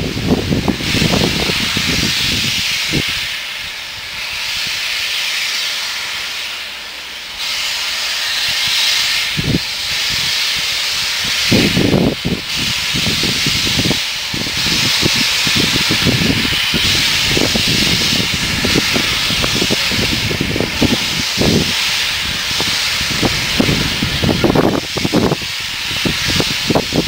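Steam locomotive venting steam with a steady, loud hiss, dipping a little a few seconds in, with irregular low thuds and rumbling underneath.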